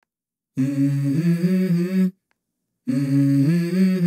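Song intro of wordless vocal humming in two short melodic phrases of about a second and a half each, with a pause between, the notes held steady and stepping between pitches.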